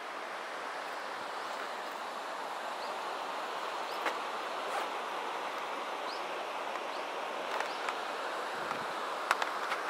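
Steady rush of a river running over rocky rapids. A few faint short high chirps come through, and sharp clicks sound near the end.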